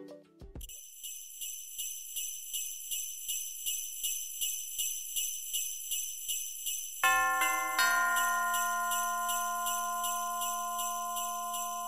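Closing music: jingle bells shaken in a steady pulse, about three shakes a second. About seven seconds in, a ringing, bell-like chord joins them and slowly fades.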